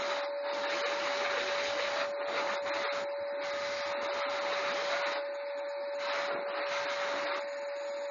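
Vacuum cleaner running, its motor giving a steady whine under a rushing hiss that thins and swells several times as the airflow at the nozzle changes.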